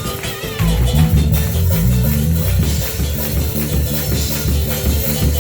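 Live gospel band playing an upbeat groove: bass guitar, electric guitar and drum kit keeping a steady beat.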